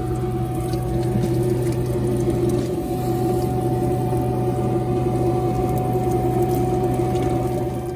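Handheld shower head spraying water steadily, with a steady hum underneath.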